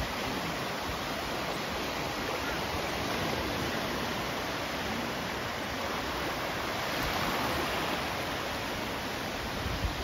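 Gentle sea surf: small waves breaking and washing up the shore as a steady rushing, swelling slightly a few seconds in and again about seven seconds in.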